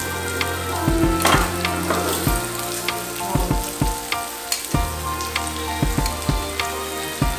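Pork belly and abalone sizzling on a tabletop grill, a steady hiss. Metal tongs click sharply many times against the grill and the plate as pieces are lifted off.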